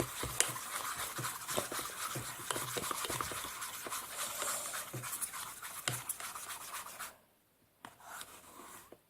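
A utensil stirring and scraping a glue and shaving-cream slime mixture in a container, with many small clicks against the sides. It stops about seven seconds in, then comes back briefly near the end.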